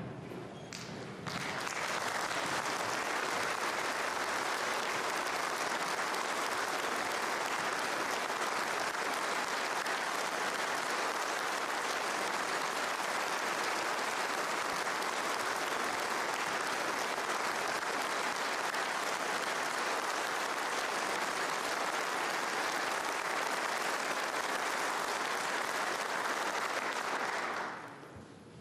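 Large audience applauding steadily. The clapping swells in about a second in and dies away near the end.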